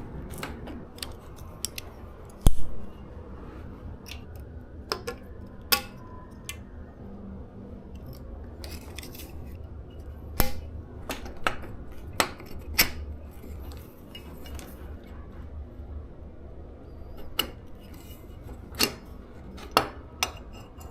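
Hand tools clicking and scraping against the e-bike's front fork while prying off the caps that hold it in, a scatter of small metallic taps with one heavier knock a couple of seconds in.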